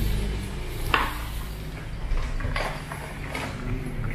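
Spice jars and bottles clinking and knocking against each other as someone rummages through a pull-out wire spice rack: a handful of separate clacks, the sharpest about a second in, over a steady low hum.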